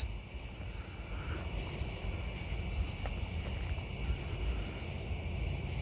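Crickets chirping steadily at night: a continuous high trill with a faint regular pulse above it, over a low rumble.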